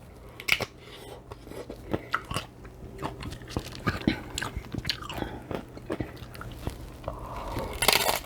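Close-miked chewing of a big mouthful of Mexican shrimp cocktail, with irregular clicks and mouth smacks. A louder noisy burst comes near the end.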